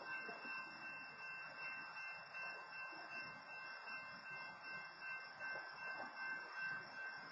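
Faint, steady running noise of a stopped BNSF freight train with its diesel locomotive idling, with a thin steady high tone over it.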